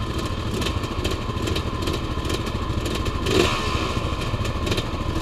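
Off-road engines idling together, a quad and dirt bikes ticking over. A dirt bike's engine grows louder as it rides up close, loudest about three and a half seconds in.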